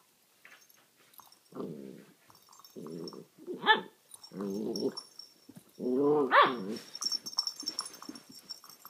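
Nine-week-old Alaskan Malamute puppy "talking" in play: about five short grumbling, growl-like vocalizations in a row. Two of them rise sharply into a high yelp, and the loudest comes about six seconds in.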